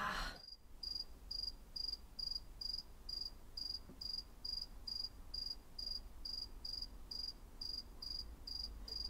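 Cricket-chirp sound effect: a single high chirp repeating evenly, about two a second, the stock cue for an awkward silence.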